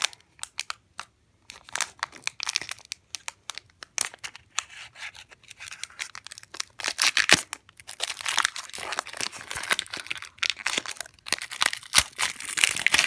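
A foil Pokémon trading card booster pack being crinkled and torn open by hand: a string of sharp crackles, sparse at first, then denser and louder from about halfway through.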